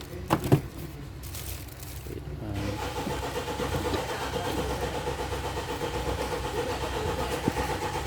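Two sharp clicks near the start, then, about two and a half seconds in, a steady mechanical running sound starts up and holds at an even level with a fast flutter, like an engine running.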